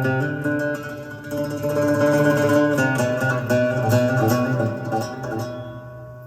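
Guitar music played back through the Sony TC-K555ESL cassette deck, monitored off a type 1 tape as it is being recorded.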